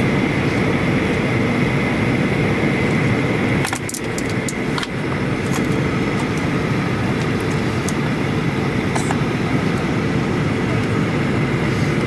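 Steady cabin noise inside a jet airliner during its descent: a deep rumble of engines and airflow with a faint high whine running through it. About four seconds in there are a few light clicks and a brief drop in the noise.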